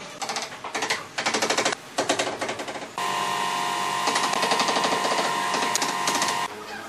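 Hammer tapping on a tiled countertop edge in fast, rattling runs. From about three seconds in a steady whine with a fast rattle takes over, then stops suddenly near the end.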